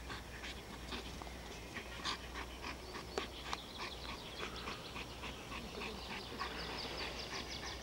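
A large dog panting in short, irregular breaths while it runs and retrieves a toy.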